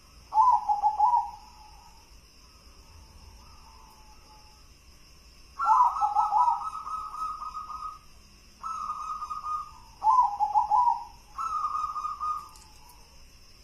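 Zebra dove (perkutut) cooing its song: five phrases of rapid, rolling coos, each one to two seconds long, with a fainter coo in between.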